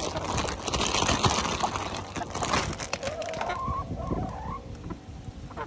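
A rustling, knocking commotion for the first few seconds, then a hen gives one wavering, rising call about three seconds in, followed by a few light clicks as the chickens peck at strawberries.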